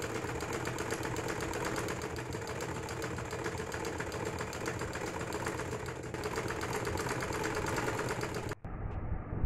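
Domestic sewing machine stitching a fabric strip onto a cotton bodice piece: a fast, even rattle of the needle mechanism that stops abruptly about eight and a half seconds in.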